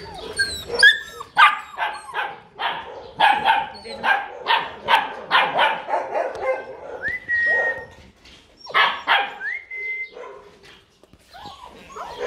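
Several young puppies barking in quick, high yaps, then a couple of long, high whines that rise and then hold steady.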